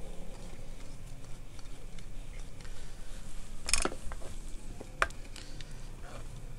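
Steel ladle stirring shredded chicken into a pot of broth, with two sharp clinks of the ladle against the aluminium pot, a little over a second apart past the middle.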